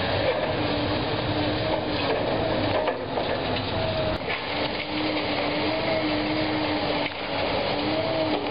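High-reach demolition excavator working: its engine and hydraulics give a steady wavering whine over a rumbling noise, with a few sharp knocks.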